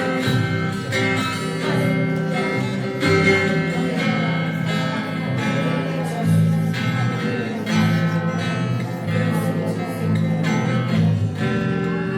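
Worship band music, led by an acoustic guitar strumming chords in a steady rhythm over sustained held notes.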